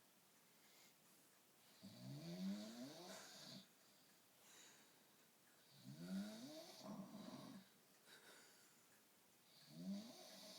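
Faint, slow snoring: three snores about four seconds apart, each a drawn-out breath of a second and a half or so whose rattling tone rises in pitch.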